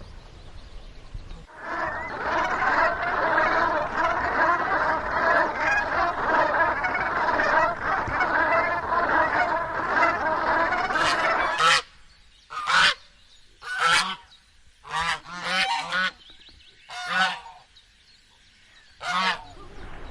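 A flock of geese honking in a dense, overlapping chorus for about ten seconds. The chorus breaks off suddenly and gives way to about six separate honks, spaced a second or two apart.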